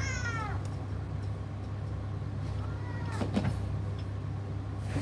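A steady low hum of room noise, with a faint short gliding sound about three seconds in.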